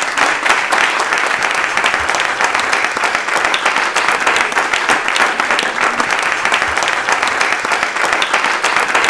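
Audience applauding: many hands clapping together in a dense, steady round of applause.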